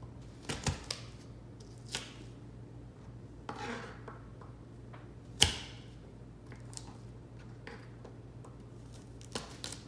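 Chef's knife cutting peeled garlic cloves on a plastic cutting board: a few scattered knocks of the blade against the board, the loudest about halfway through.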